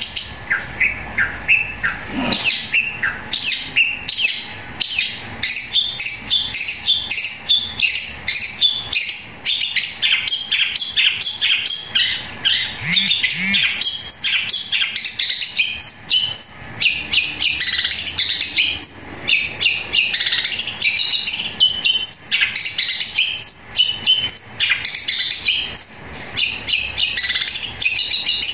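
Caged long-tailed shrike (cendet) singing loudly and without pause: a rapid, unbroken chatter of short chirps. It includes mimicked Eurasian tree sparrow calls, and sharp falling notes come in about halfway through.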